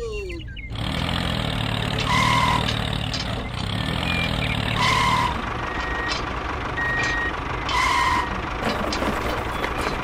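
Tractor engine running steadily while a reversing beeper sounds three times, about three seconds apart, as the tractor backs up to hitch a trailer.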